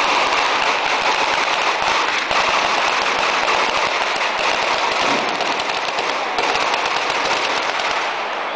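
Firecrackers packed on the Florentine Easter fire cart going off in a dense, continuous rapid crackle like machine-gun fire, easing off near the end.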